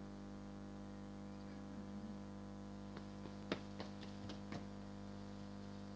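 Steady electrical hum with a stack of fixed tones from a Tyco TVC8000 toy camcorder's recording circuit, with a few sharp clicks in quick succession about three to four and a half seconds in.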